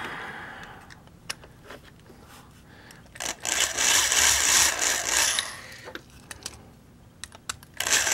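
Electric drill with a twist bit grinding into the base of a Hot Wheels die-cast car to open it. It drills for over two seconds from about three seconds in, then starts again near the end, with small clicks of handling in between.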